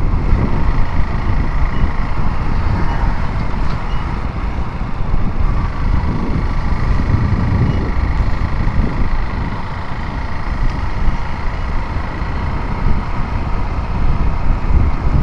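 Motorcycle riding at road speed: steady engine and wind rumble on the rider's microphone.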